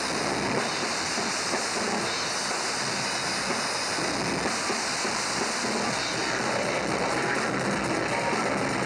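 Death metal band playing live, with drum kit and distorted guitars blurred together into a loud, dense, steady wash of noise.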